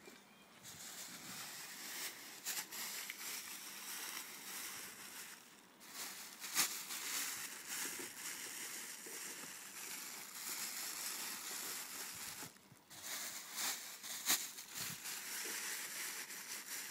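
Rustling handling noise, a steady hiss with a few sharp clicks and knocks.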